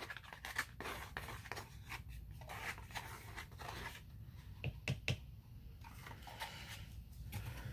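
A thin stick scraping thick acrylic paint out of a plastic cup, faint scrapes and clicks, with a few sharper taps about five seconds in.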